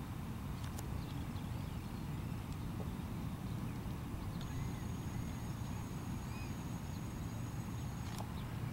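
Steady low rumble of wind buffeting the microphone in an open field. A few faint distant bird chirps come through around the middle, and a thin high whine runs through the second half.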